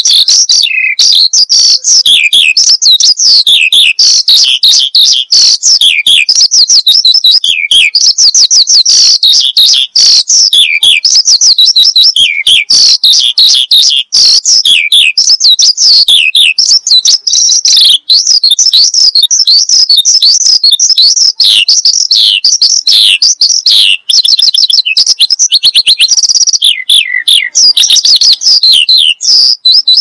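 Javan bushlark (branjangan) in full, persistent song. It gives a fast, loud, nearly unbroken stream of high chirps, trills and quick downward slurs, with only a few brief breaks.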